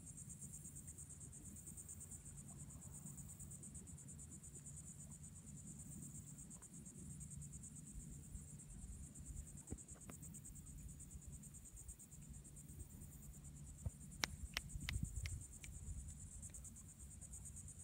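A steady high-pitched insect chorus with a fine rapid pulse, over a low rumble. Near the end, a quick run of sharp clicks.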